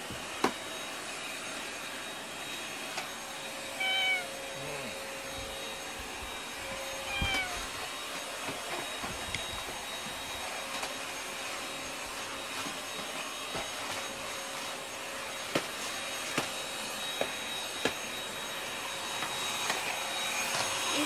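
A cat meowing twice, short calls about four and seven seconds in, over the steady whine of a vacuum cleaner running in the background. A few small clicks sound near the start and in the last third.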